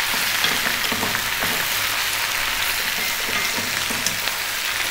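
Fresh spinach frying in olive oil in a large pan over medium heat, sizzling steadily as the leaves wilt and give off moisture.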